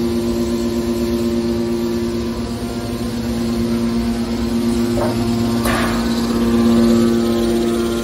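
Hydraulic power unit of a horizontal scrap metal baler, its electric motor and hydraulic pump running with a steady, even hum. A couple of brief knocks come about five seconds in.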